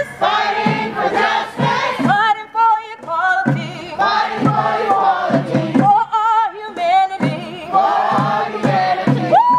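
Music with a group of voices singing, the held notes wavering, over a regular low pulse.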